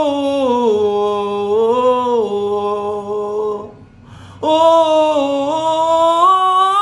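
A man singing a Haitian Creole gospel song solo, drawing out long sustained notes that glide between pitches: one long phrase, a breath about four seconds in, then another.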